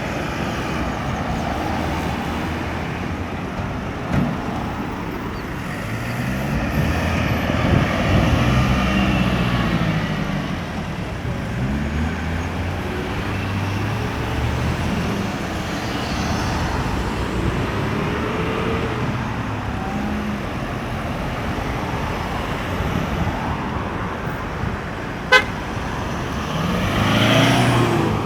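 Road traffic circulating at a busy roundabout: car and truck engines passing one after another, their pitch rising and falling as they go by. A short sharp toot about 25 seconds in, and a vehicle accelerating away near the end.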